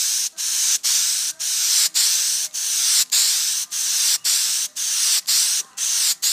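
Aerosol can of headliner contact cement spraying in short hissing spurts, about two a second with brief breaks between.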